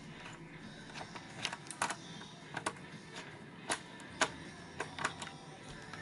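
Screwdriver clicking and scraping against the screws and sheet-metal plate inside an all-in-one PC as the screws are worked loose: irregular sharp metallic clicks, some in quick runs of two or three.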